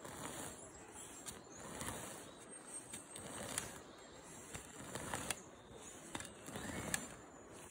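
A hand hoe dragged through forest turf, tearing roots and scraping soil as a strip of turf is peeled up and rolled, in several pulls with a few sharp clicks.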